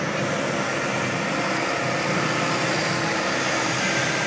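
Steady outdoor street and crowd noise: an even rushing hiss with a faint hum underneath and no single distinct event.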